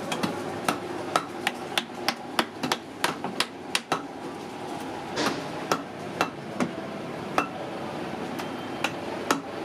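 Hand hammer striking a steel chisel held against rubber tire, cutting and shaping the tire for a tub: sharp taps in an irregular rhythm, about two to three a second.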